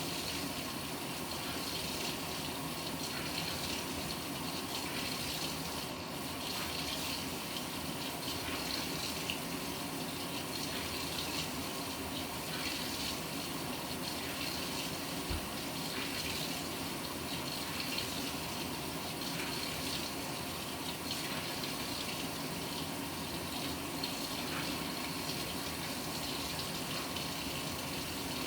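Panasonic NA-FA100H9 top-loading washing machine taking in water: a steady rush of water pouring into the tub, with light splashing and bubbling.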